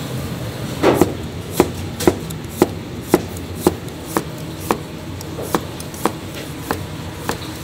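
Kitchen knife slicing vegetables, each stroke knocking sharply on the cutting board, about two strokes a second, over a steady low hum.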